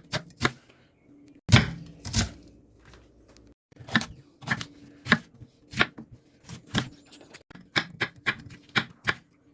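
Kitchen knife chopping vegetables on a cutting board: a series of sharp, uneven knocks that come closer together, about two a second, in the second half.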